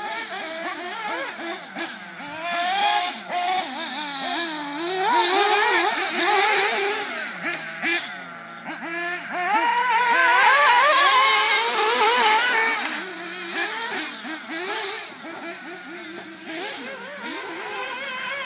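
Small nitro glow engines of 1:8 scale RC buggies racing, more than one at once, each revving up and dropping back through the corners in a high, buzzing whine. They are loudest about ten to twelve seconds in, when a car runs close by.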